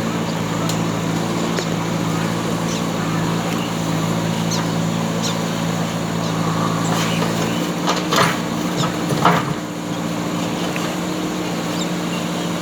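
JCB backhoe loader's diesel engine running steadily while digging. Its tone shifts about two-thirds of the way through, and two sharp knocks follow soon after.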